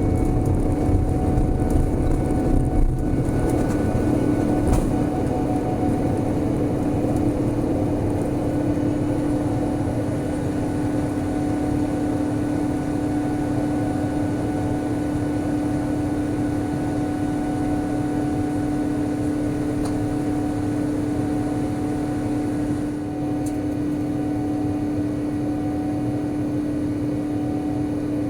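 Cabin noise of a Boeing 787-10 airliner taking off and climbing: a steady jet-engine drone with a constant hum, a few knocks and bumps in the first seconds.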